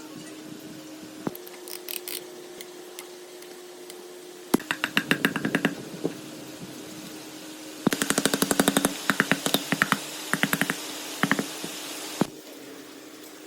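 Two runs of rapid sharp clicks, about ten a second, over a steady hum, the second run longer, then a single knock near the end.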